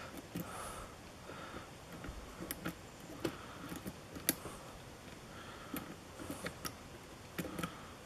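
Faint, scattered light clicks and ticks of a hook pick and tension wrench working the spool pins of a brass pin-tumbler padlock, with the lock held in a false set and giving counter-rotation.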